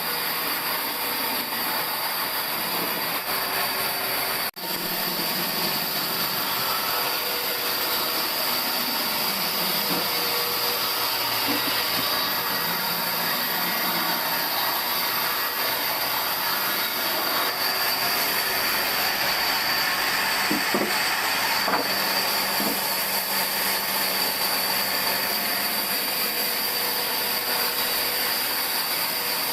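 Sawmill machinery running steadily with a constant noisy whine. The sound drops out for an instant about four and a half seconds in, then carries on unchanged.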